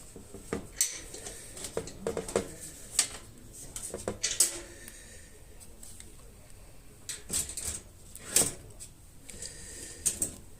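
Irregular knocks and light clanks of thin sheet-metal tin parts being handled and set down, about half a dozen sharp strikes with quieter rustling between them.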